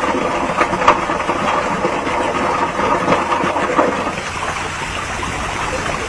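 Water of a small waterfall pouring down steadily and splashing, with a couple of sharper splashes.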